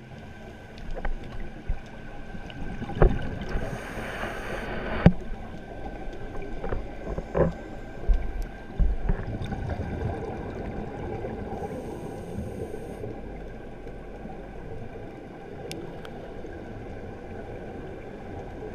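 Underwater noise picked up through a GoPro's waterproof housing during a scuba dive: a steady wash with gurgling bubbles. A few sharp knocks and short bursts of hiss come in the first half, the loudest about three and five seconds in.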